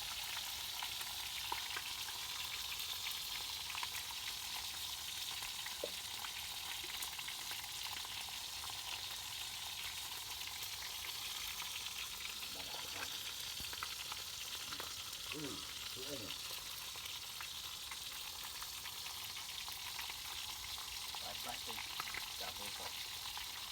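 Food frying in hot oil: a steady sizzling hiss with continuous fine crackling.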